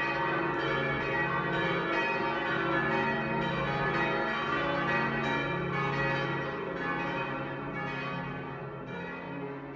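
Church bells pealing, struck about twice a second, their tones overlapping and ringing on together. The sound eases slightly toward the end.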